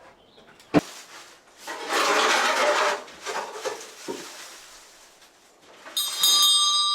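Things being moved while clearing out a workshop: a sharp knock, then about a second of loud scraping, as of wood rubbed or dragged. Near the end a piece of metal clangs and rings on with several steady tones.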